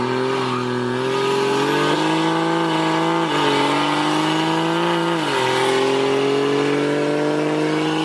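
Cummins turbo-diesel pickup accelerating hard, heard from inside the cab with the rear window open. The engine's pitch climbs and drops at two upshifts, a little over three and about five seconds in, then climbs again. A faint high whistle from the modified turbo rises about a second in, mostly buried under the exhaust.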